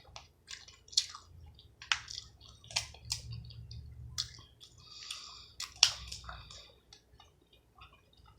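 Close-miked eating of seafood-boil food: chewing with wet, squishy mouth sounds and sharp clicks about once a second.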